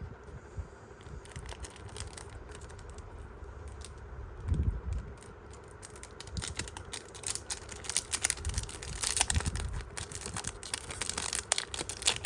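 Pokémon booster pack's foil wrapper being handled and torn open: quick crinkling and crackling that grows denser and louder through the second half. There is a soft low thump about four and a half seconds in.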